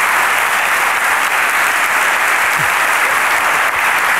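Sustained applause from a large audience: steady, dense clapping.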